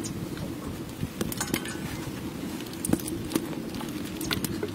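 Scattered small clicks and light knocks of a plate, bowl and garnish being handled, over a steady low rumble.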